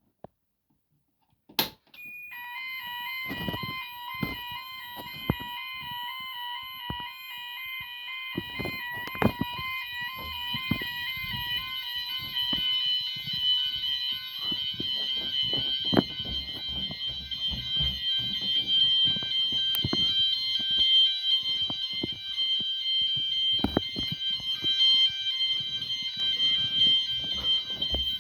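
Fire alarm sounders on a Gent Vigilon system going off in a test, starting with a click about two seconds in. An alternating two-tone signal runs over steady high tones. Irregular knocks and rustles sound underneath.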